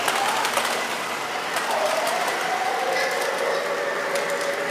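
MTH R142A model subway train running on its track: steady rolling of the wheels with light clicks, under the recorded electric motor whine of its sound system. The whine drops in pitch as the train slows for its next station stop.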